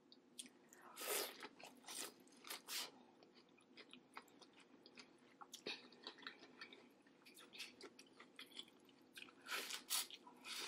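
A person eating: crunchy bites and wet chewing with lip smacks. The loudest bites come about a second in and again near the end, with softer chewing clicks in between.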